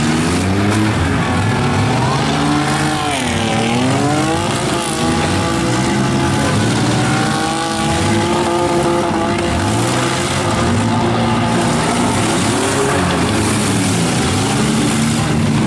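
Several demolition derby minivan and SUV engines revving and running hard together, their pitch repeatedly rising and falling. One engine drops sharply in pitch and winds back up about three seconds in.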